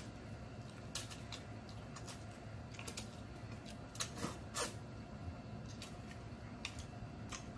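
Mouth sounds of eating noodles by hand: scattered small wet clicks and smacks of chewing, with a couple of longer slurps of noodle strands about four seconds in.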